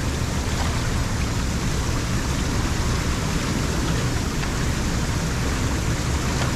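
Lake water pouring steadily into a large drain pipe: a constant, even flow.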